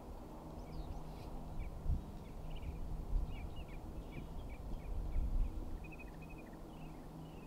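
Steady low drone of the B-29 Superfortress's four Wright R-3350 radial engines heard from a long way off, with a few low thumps. Small birds chirp over it again and again.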